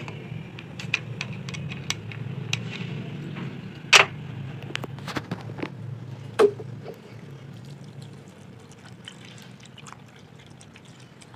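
Water poured from a plastic bottle into a plastic blender jar of gram flour and spices. Two sharp knocks stand out, about four and six and a half seconds in, among lighter clicks of handling.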